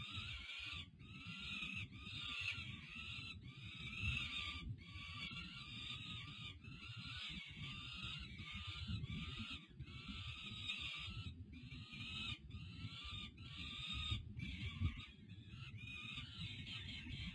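Young peregrine falcons giving repeated harsh begging calls, about one a second, as they are fed. A low rumble runs underneath.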